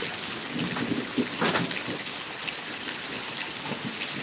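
Steady heavy rain falling during a thunderstorm: an even hiss of rain on the ground and surrounding surfaces.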